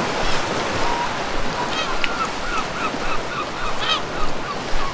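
Surf washing on a beach, with gulls calling over it: a quick series of short, curved calls, about three a second, starting just under two seconds in.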